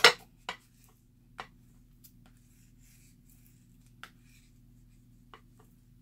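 A sharp tap of a small plastic craft tool being set down on a cutting mat, then a few faint taps and rubs of paper and chipboard pieces being handled and pressed, over a faint steady hum.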